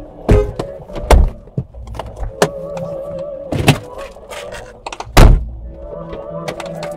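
Telephone hold music playing, with a series of about six heavy thumps at irregular intervals, the loudest about five seconds in.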